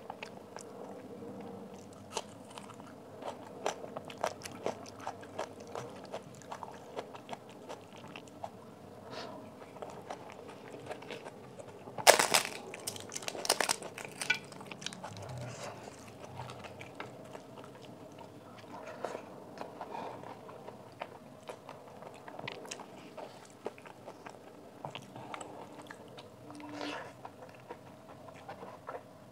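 Close-up eating sounds: chewing and wet mouth sounds with scattered small clicks. About twelve seconds in comes a loud burst of crunching from a crisp papad, lasting about two seconds.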